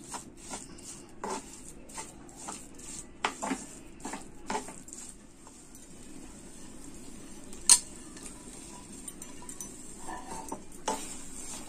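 A metal spoon scraping and clinking against a nonstick frying pan, stirring khoya and sugar. The clicks are irregular, thinning out in the middle, and there is one sharp clink, the loudest sound, a little past halfway.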